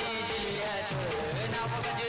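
Music: a song with a singing voice over steady accompaniment.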